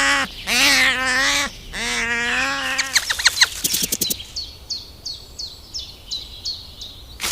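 Three drawn-out, wavering animal calls, one after another, then a quick rattle of clicks and a bird chirping steadily, with short high notes that fall in pitch about three times a second.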